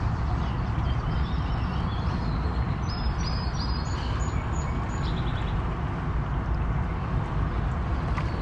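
Steady low rumbling background noise, with a bird chirping a quick run of short high notes about three to five seconds in.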